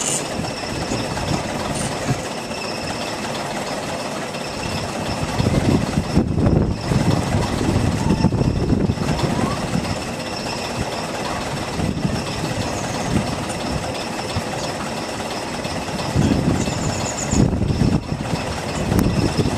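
A heavy engine running steadily at idle, with stretches of louder low rumble around a third of the way in and again near the end.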